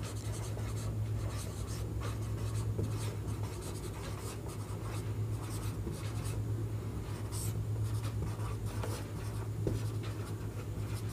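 Writing by hand: a run of short, light scratching strokes, over a steady low hum.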